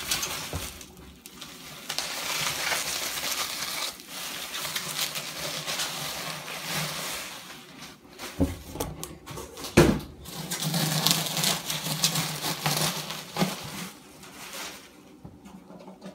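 Packing material and a cardboard shipping box rustling and crinkling as they are handled during unpacking, with a few knocks, the loudest about ten seconds in.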